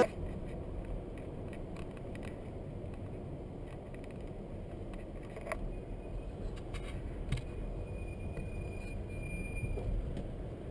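Steady low rumble of a car driving slowly, heard from inside the cabin, with a couple of faint clicks or rattles about halfway through.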